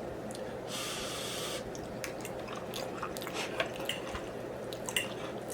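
Close-miked chewing of soft, wet food, with scattered wet mouth clicks and a breathy hiss of air about a second in, over a faint steady hum.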